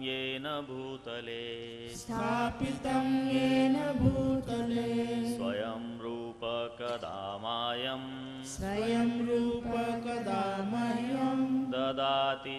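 Devotional Hindu chanting: a sung mantra with long gliding vocal lines over a steady harmonium drone.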